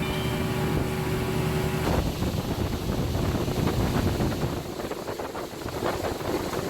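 Small fishing boat's outboard motor running with a steady hum, wind buffeting the microphone. About two seconds in, the steady tone gives way to rough rushing wind and water noise.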